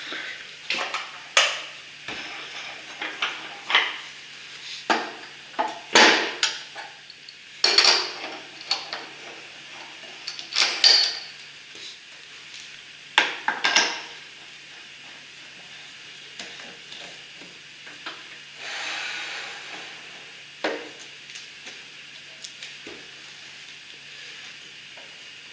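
Irregular knocks, clicks and scrapes as a wood-and-epoxy bowl is fitted onto and taken off a lathe's metal chuck, and the lathe's cast tailstock is moved up along the bed, with the lathe switched off.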